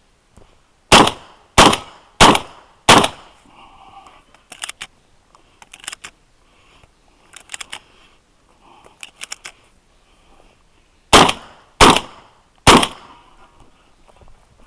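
Shotgun fired in two quick strings: four shots at about one shot every 0.6 s, then, after about eight seconds of quieter clicks and knocks, three more shots. This is a practical shooting stage.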